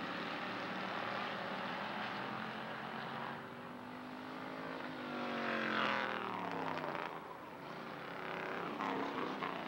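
Hobby stock race car engines running at speed around an oval track. About halfway through, one car passes close by: its engine note grows loud, then drops in pitch as it goes away.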